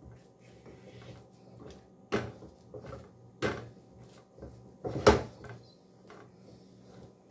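Wooden spoon turning thick cornmeal in a metal pot, scraping and knocking against the pot. There are three louder knocks, the loudest about five seconds in.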